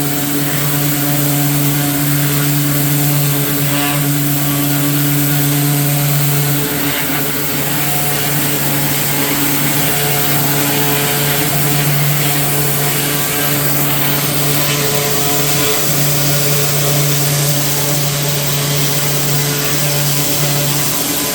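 Gas-powered pressure washer running steadily, a constant engine hum under a high hiss, with the engine note wavering briefly a couple of times.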